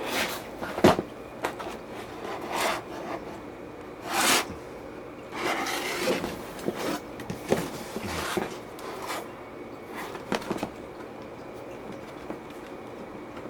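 A laptop and its packaging being handled and opened up, with irregular scrapes, rustles and light knocks. The sharpest knock comes about a second in, and the handling dies down over the last few seconds.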